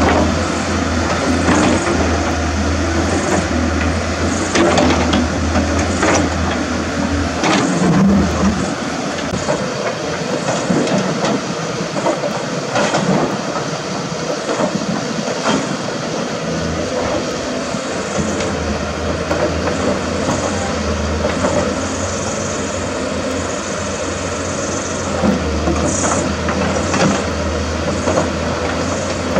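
CAT 320D hydraulic excavator working in rock: its diesel engine drones steadily under load, with scattered clanks and knocks of stone against the steel bucket and tracks. The low engine drone eases off for several seconds around the middle, then comes back.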